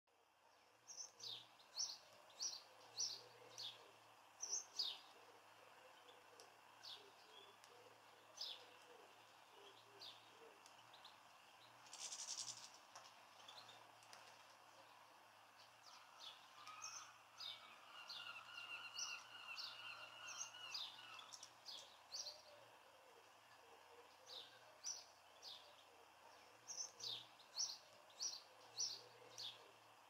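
House sparrow chirping: clusters of short, sharp cheeps repeated throughout. A fast rattling trill runs for a few seconds in the middle, and a brief hiss comes about twelve seconds in.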